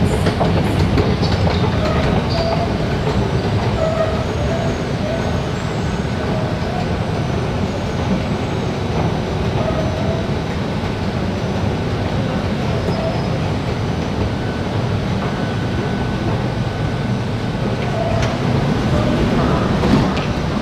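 Steady low rumble and hum of an underground metro platform, with a train standing at the platform doors.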